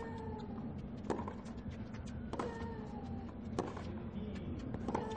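Tennis ball struck back and forth by racquets in a baseline rally, four sharp hits about 1.3 s apart. Most hits are followed by a short, slightly falling vocal grunt from the player striking the ball.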